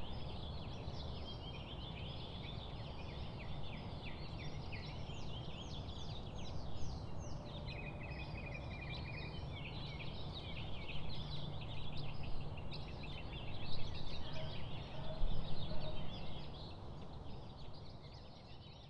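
Busy chorus of many small birds chirping and trilling, with calls overlapping throughout, over a steady low rumble; it fades out near the end.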